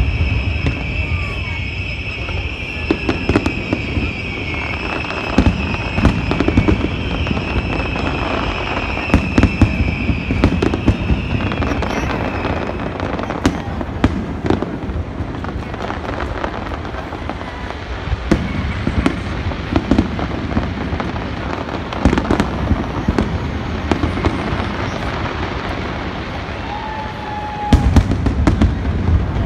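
Aerial fireworks display: shells bursting in deep booms and sharp cracks, many in quick succession and thickest near the end. A steady high tone runs through the first dozen seconds.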